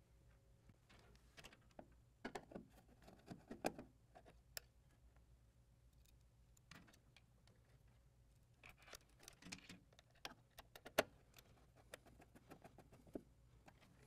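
Faint, scattered clicks and small metallic rattles of a screwdriver and wire ring terminals being handled inside a metal ATM cabinet, over near silence.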